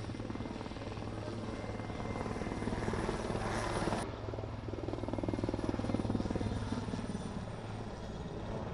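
Puma-type military transport helicopter hovering close by, its rotor chopping rapidly over a steady turbine drone while it lifts a vehicle slung beneath it. The sound shifts abruptly about four seconds in.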